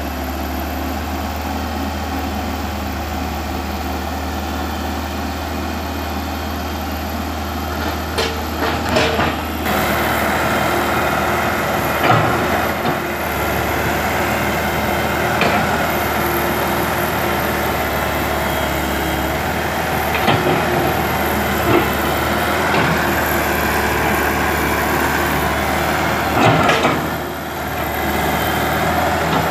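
Komatsu PC120 excavator's diesel engine running steadily under working load as it digs, with a low hum and hydraulic strain. Irregular knocks and clunks from the bucket and boom in the soil recur every few seconds.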